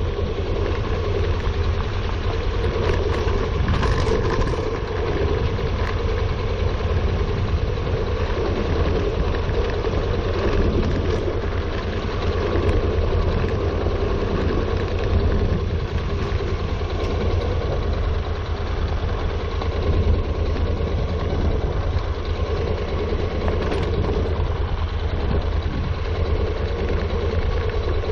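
Honda NC700X motorcycle's parallel-twin engine running steadily while riding a gravel road, mixed with tyre noise on the gravel and wind on the microphone.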